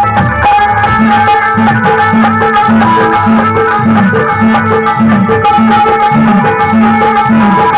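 Live instrumental passage of a Rajasthani bhajan: a harmonium holding a steady melody over a hand drum beating a repeating folk rhythm, with no singing.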